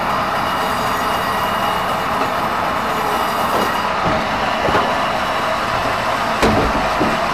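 Steady running noise of a moving vehicle, with a sharp knock near the end.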